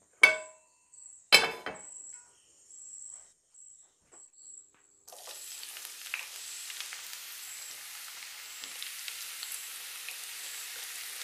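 Sliced onions sizzling as they are dropped into hot oil in a nonstick frying pan, a steady hiss with small crackles starting about five seconds in. Near the start there are two sharp knocks as the pan is set on the gas stove.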